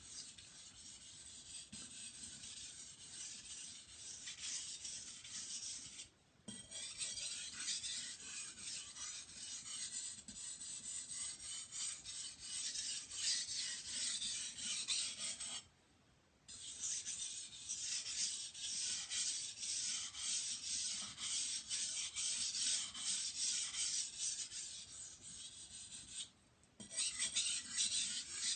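Steel knife blade stroked over and over across a wet 1000-grit water stone, a steady rasping scrape, at the stage of removing the burr and cleaning the edge under moderate pressure. The strokes stop briefly three times: about six seconds in, about halfway, and near the end.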